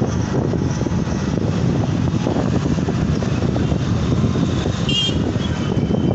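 Steady engine and road noise of a moving vehicle, with a brief high beep about five seconds in.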